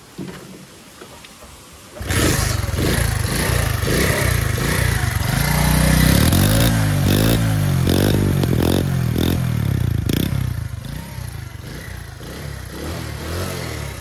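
A 70cc single-cylinder motorcycle engine starts up about two seconds in, after being washed and not starting earlier. It revs up and down several times, then settles back to a lower, steadier run near the end.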